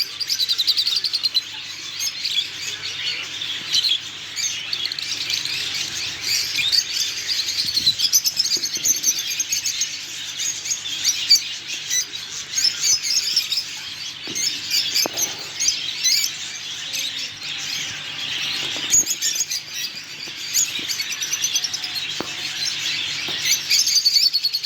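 Many caged pet birds, such as cockatiels and other small parrots, chirping and chattering together in a continuous dense din. A few brief knocks sound near the middle and toward the end.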